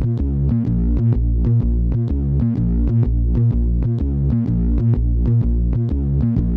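Electronic background music: a synthesizer playing quick repeated notes, about four a second, over a pulsing bass line.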